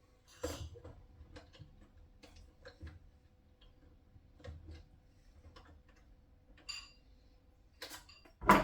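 Scattered light clicks and taps of hand tools and small parts being handled during a boiler repair, over a faint steady hum. A loud, sharp clatter comes near the end.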